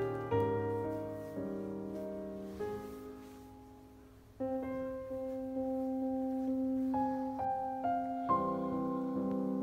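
Slow, gentle solo piano music. The notes fade out between chords, dying away almost completely about four seconds in before a new chord comes in.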